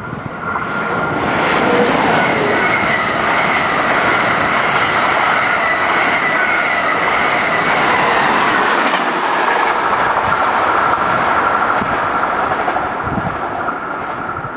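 NJ Transit equipment train passing at speed close by, a Multilevel cab car leading with an ALP-46A electric locomotive and a GP40-2 diesel behind. The rushing wheel-on-rail noise swells over the first two seconds, holds loud with high whining tones over it, and eases off near the end as the train recedes.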